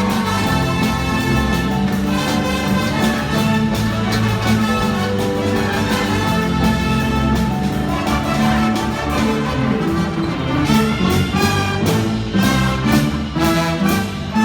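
Instrumental ensemble music with brass playing held chords that change every second or so.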